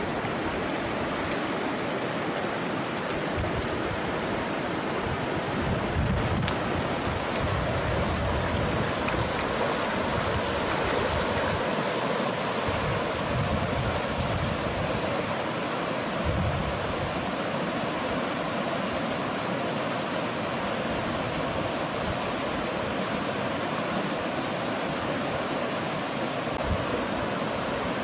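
Steady rush of a fast-flowing river running over rocks and rapids.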